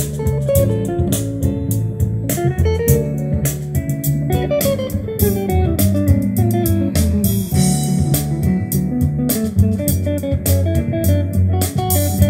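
Recorded music with guitar and bass guitar over a steady beat, played through a Grundig V304 integrated stereo amplifier and a pair of large loudspeakers.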